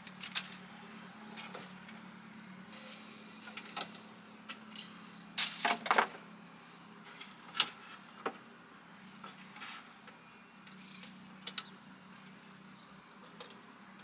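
Scattered light clicks and clacks of hard plastic parts and small screws being handled as a plastic duct cover is fitted onto a water heater's heat exchanger, with a cluster of louder clacks about five to six seconds in, over a faint steady hum.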